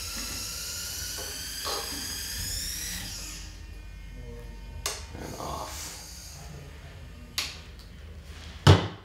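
High-pitched electronic whine from the CineStar camera gimbal's motors as the gimbal is driven from the transmitter, rising slightly in pitch and fading out after about three and a half seconds. A few sharp clicks follow, with the loudest knock near the end.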